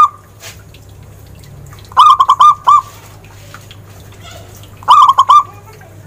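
Zebra dove (perkutut) cooing: two phrases of quick, evenly repeated notes, one about two seconds in and the next about three seconds later.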